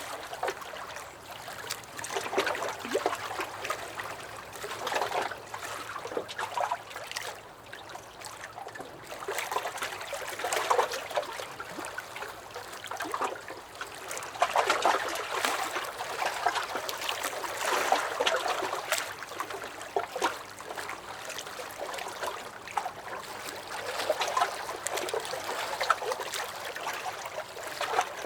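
Small lake waves lapping and splashing against a dock, in irregular surges every second or two with small sloshes and drips between them.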